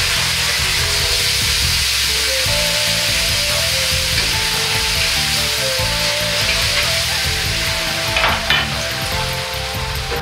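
Chili sauce sizzling in a hot wok as it is stirred with a metal ladle, a loud, steady hiss. Near the end come two sharper scrapes of the ladle against the wok.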